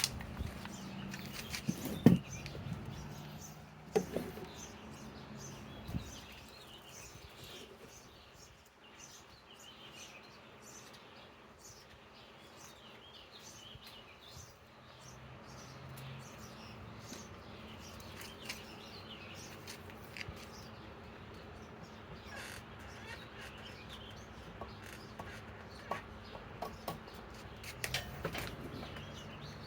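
A few sharp clicks and knocks in the first six seconds as a power-tool battery is handled and set onto its charger, then a quiet stretch with birds chirping and calling in the background.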